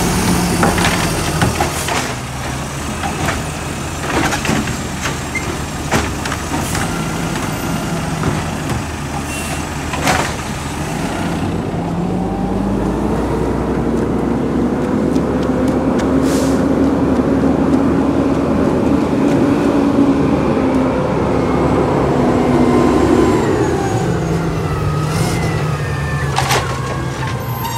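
Natural-gas-powered automated side-loader garbage truck at work: its arm lifts and dumps a wheeled cart with a series of knocks and bangs over the engine in the first ten seconds. The engine note then climbs and holds for about ten seconds before dropping back as the truck moves on, with more sharp knocks near the end.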